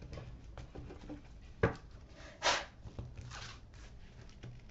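Tarot cards being handled and spread out across a cloth-covered table: a sharp card tap about one and a half seconds in, then a few soft swishes and small ticks.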